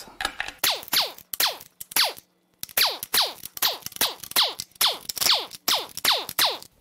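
Air impact wrench run in quick short bursts, about two a second, each a brief whir that falls steeply in pitch as the motor spins down, as it runs out a row of 12 mm bolts. There is a short pause a little over two seconds in.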